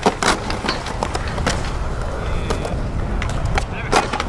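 Skateboard wheels rolling on concrete, with sharp wooden clacks of the deck. The loudest clack, about four seconds in, is the tail popping the board into a flip trick.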